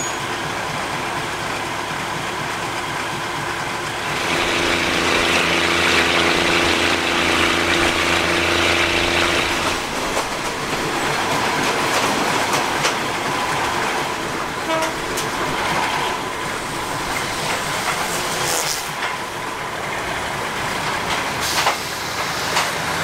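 Diesel railcar of a commuter train: its engine runs steadily at first, then throttles up and gets louder for about six seconds as the train pulls away. After that come wheel and running noise on the track, with a few sharp knocks.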